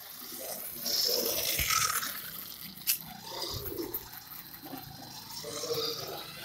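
Wltoys 12428 radio-controlled buggy's electric motor and gears whining in bursts as the throttle comes and goes, with the tyres rolling on paving blocks. A sharp click about three seconds in.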